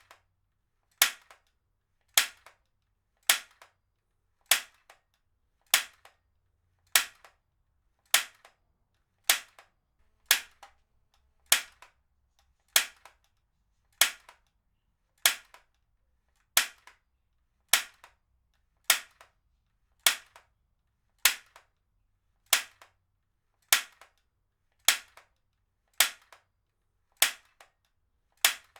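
Heavy-duty stapler fired again and again at a steady pace, about one sharp snap every 1.2 seconds, each ending quickly.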